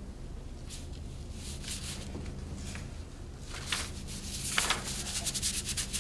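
A Chinese painting brush scrubbing and rubbing across paper in short scratchy strokes. The strokes are sparse at first, then come fast and close together in the last couple of seconds, over a steady low room hum.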